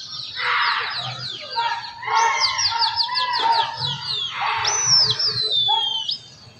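Pigeon fliers' whistling: quick runs of short falling whistles, then long whistles that glide downward about four to six seconds in, mixed with bird chirps.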